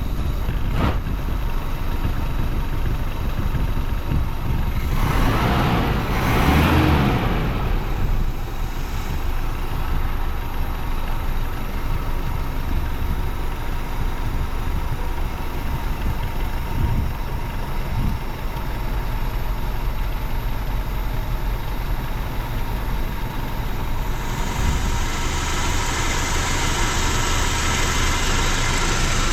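1987 Mazda B2000 pickup's four-cylinder engine idling steadily, freshly restarted, with the slight shake that the owner sets out to adjust. A brief whooshing swell comes about five to seven seconds in, and a hiss joins near the end.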